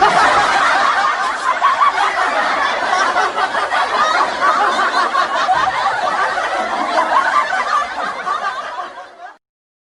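Laughter sound effect: several people laughing at once, a continuous stretch of overlapping laughs that thins and fades out near the end.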